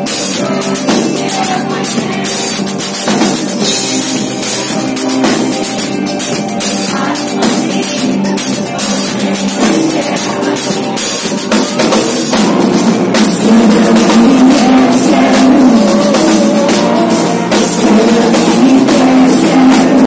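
Live rock band playing loud: drum kit with steady cymbal hits, and keyboards. A wavering sung melody comes in more strongly in the second half.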